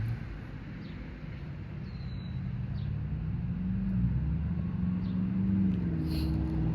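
Low rumble of a passing motor vehicle, growing steadily louder, with a few faint short high ticks or chirps.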